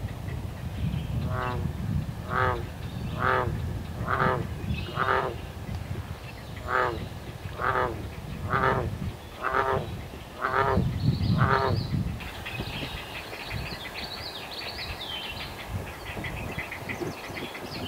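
Great blue heron nestlings giving their begging calls at the nest as a parent feeds them: about ten harsh, rattling croaks, roughly one a second, over a low rumble. About two-thirds of the way in they give way to fainter, higher chittering chirps.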